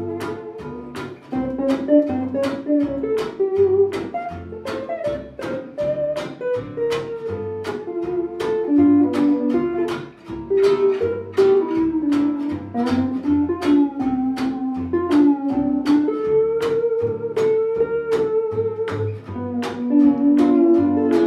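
Instrumental Hawaiian swing played on steel (Hawaiian) guitar, archtop guitar and plucked double bass: the steel guitar carries a gliding, sliding melody over steady guitar chords on the beat and a walking bass line.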